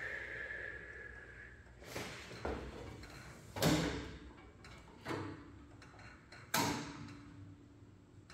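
Clunks and knocks of parts being handled during work on a jointer: a short squeak at the start, then five sharp knocks, the loudest about three and a half seconds in. Two of them leave a brief metallic ring.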